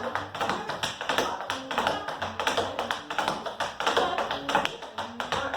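Metal taps on tap shoes striking the floor in quick, rapid shuffles, a dense run of sharp clicks, over backing music with a bass line.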